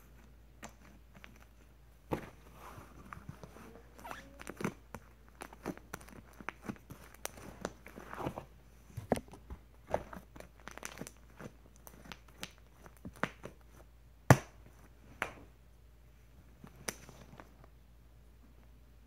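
Fluffy slime being squeezed and pressed into a plastic tub: irregular small crackles and pops, with a few sharper clicks, the loudest about fourteen seconds in.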